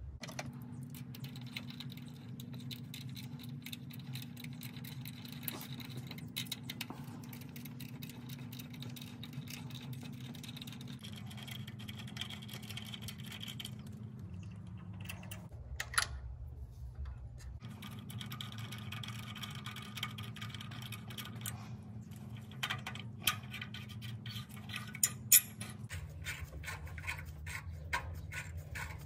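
Small metal clicks and scrapes as a replacement EGR valve is handled and fitted into the engine bay, over a steady low background hum. Near the end come a run of louder clicks as a socket ratchet tightens its fittings.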